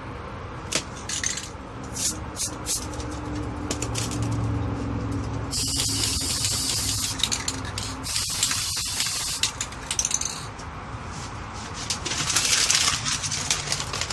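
Aerosol spray paint can hissing in three bursts, the first and longest about two and a half seconds, the others shorter. A few sharp clicks come before the spraying.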